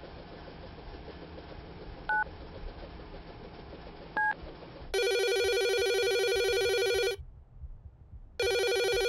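Two short keypad beeps as a number is dialled on a mobile phone, then a landline telephone ringing with a rapid trilling ring: one ring of about two seconds, a pause, and a second ring starting near the end. The ringing is the loudest sound.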